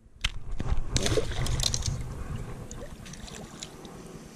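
River water sloshing with a few light splashes and clicks as a small bass is let go back into the water, fading after about two seconds.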